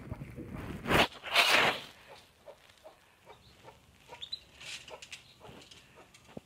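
Chickens in a wooden coop: a loud, short burst of noise about a second in, then faint clucks and scratching.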